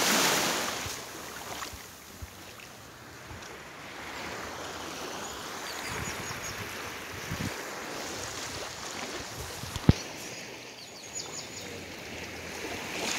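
Small waves lapping on a calm beach shore with wind rushing over the microphone, strongest in a gust at the very start. One sharp knock about ten seconds in.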